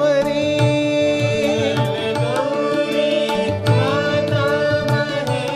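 Hindustani devotional bhajan in Raag Kedar: a male voice sings the word "Maheshwari" and draws out the melodic line, over harmonium and tabla keeping the eight-beat keherva rhythm.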